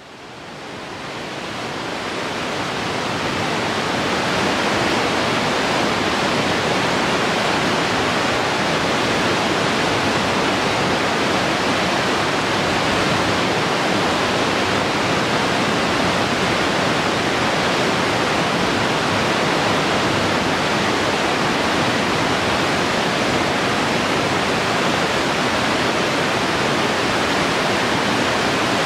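The Aare river rushing as white water through its narrow rock gorge: a steady, loud rush that fades in over the first few seconds.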